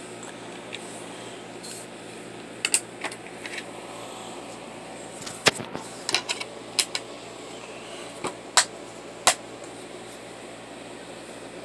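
Handling noise: a scattered run of short, sharp clicks and taps as the camera is moved about and a plastic DVD case is handled, over a steady low hum.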